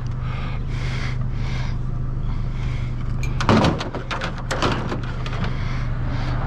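Spring-loaded metal mechanism being handled for scrap: scraping and rustling, then two sharp metal clanks about three and a half and four and a half seconds in. A steady low hum sits underneath.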